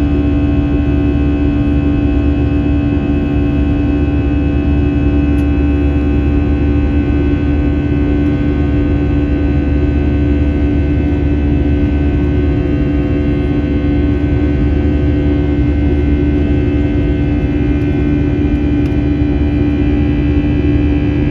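Airbus A321 engines running steadily, heard inside the cabin: a loud, even drone with a strong steady hum and many fixed tones over it.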